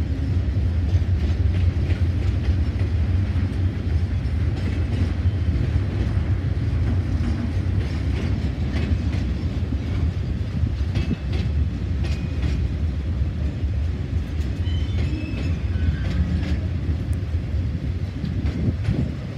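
Capital Connection passenger train's carriages rolling past close by and moving away: a steady low rumble with wheels clicking over rail joints, and a few short high wheel squeals about midway.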